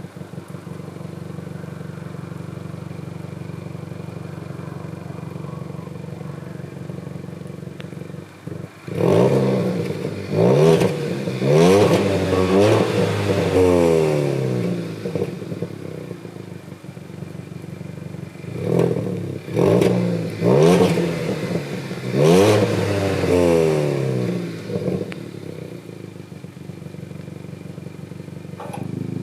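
Kia Ceed GT's 204 PS 1.6-litre turbocharged four-cylinder petrol engine on its stock exhaust. It idles steadily, then is revved several times in quick blips that rise and fall, about nine seconds in and again near twenty seconds in, settling back to idle after each group.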